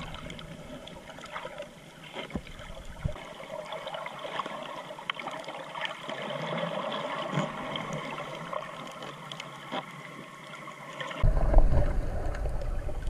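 Underwater sound through a GoPro housing: a steady muffled water hiss with scattered small clicks and crackles. About eleven seconds in it turns louder, with a low rushing rumble of water moving against the camera.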